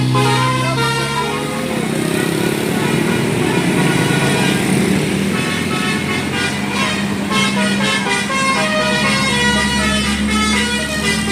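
Tour bus's multi-tone 'telolet basuri' musical air horn playing a tune of held notes, with people's voices mixed in. The first notes stop about a second and a half in, and another long steady note sounds near the end.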